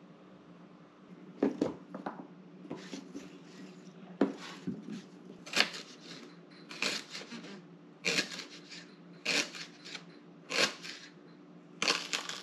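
Kitchen knife chopping rhubarb stalks on a cutting board: a series of short, crisp cuts, about one every second or so, over a faint steady hum.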